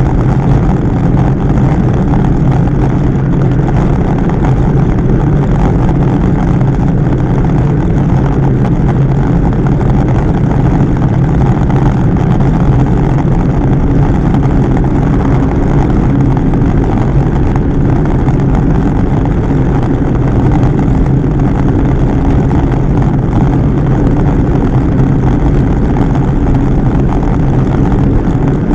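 Loud, steady wind noise rushing over the microphone of a camera on a bicycle moving at about 35 to 40 km/h.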